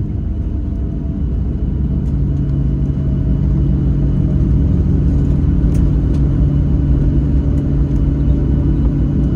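Cabin noise of a Boeing 737-700 taxiing, heard from a seat beside the wing: the CFM56-7B jet engines hum steadily with a few low tones over a low rumble from the rolling wheels. The sound grows a little louder a few seconds in.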